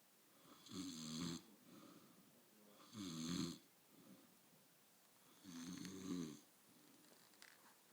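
A sleeper snoring: three loud snores about two and a half seconds apart, with softer breaths between them.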